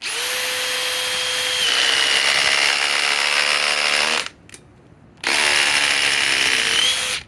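DeWalt cordless impact driver, powered by a cold 5 Ah PowerStack battery, driving a fastener in two runs: a long one of about four seconds whose pitch shifts slightly as it loads up, a pause of about a second, then a shorter run of about two seconds.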